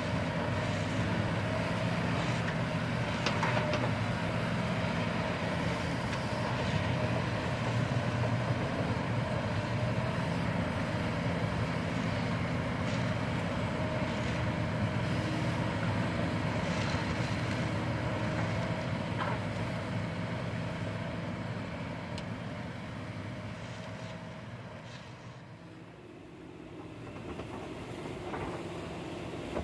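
Hydraulic excavators' diesel engines running steadily under load, with scattered clanks of bucket and rock. The sound fades about 25 seconds in, and a dump truck's diesel engine comes in near the end.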